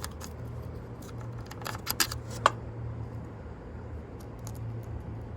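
A few light clicks and taps over a low steady hum.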